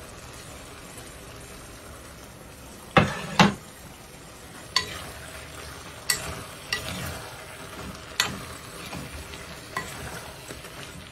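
Spoon stirring plov in a metal kazan, tapping and scraping against the pot, over a steady faint sizzle from the pot. Two loud knocks come about three seconds in, followed by a series of lighter clicks.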